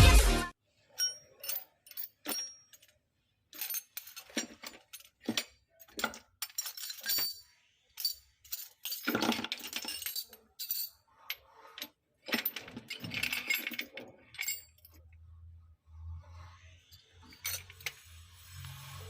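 Small hard parts clicking and clinking as a die-cast toy car is handled, in scattered short knocks and brief rattles with silences between. A faint low hum comes in near the end.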